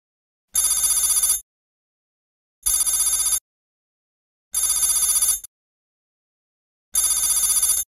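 Trilling ring like an old telephone bell, used as a sound effect, in four short bursts of just under a second each, about two seconds apart, with silence between.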